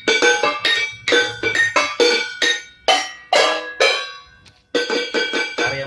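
Kitchen utensils such as bowls and pans struck with beaters and played as tuned percussion: a quick melodic run of ringing, clinking notes, about three strikes a second. There is a brief pause a little past halfway, then the strikes resume.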